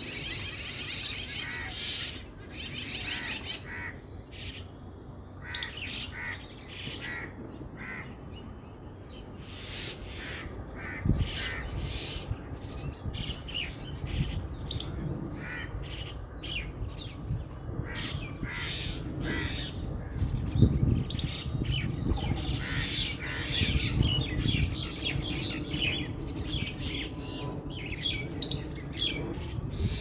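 A flock of mynas calling, a busy mix of short chirps and harsher squawks, overlapping without pause. Low rumbling comes in about a third of the way through and again in the second half.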